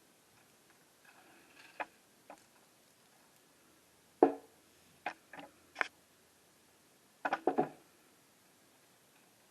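Handling noises during an unboxing: a string of separate knocks and clicks as parts and packaging are picked up and set down, the loudest about four seconds in and a quick cluster of knocks near the end.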